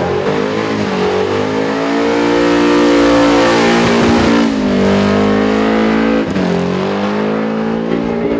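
Blown, methanol-fuelled engine of a VK Commodore held at high revs during a burnout, the revs sagging and climbing back several times, over a steady hiss of spinning tyres.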